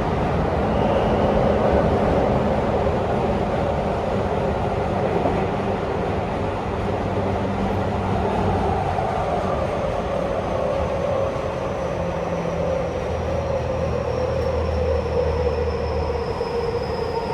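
Running sound heard inside a Tokyu 5050 series electric train car: a steady rumble of wheels and motors, with the traction motors' whine slowly falling in pitch over the second half as the train slows.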